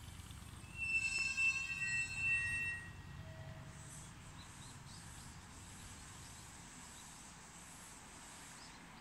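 Aichi Loop Railway 2000 series electric train running slowly into a station: low rumble of wheels on rail, with a loud, high-pitched metallic squeal from the running gear for about two seconds early on. After the squeal the train goes on with a softer, steady rumble as it slows toward its stop.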